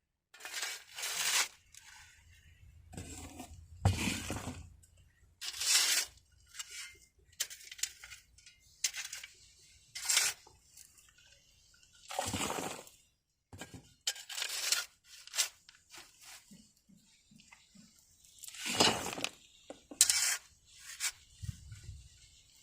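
Hand digging in dirt: a garden tool scraping and clinking through soil in short, irregular strokes about a second apart.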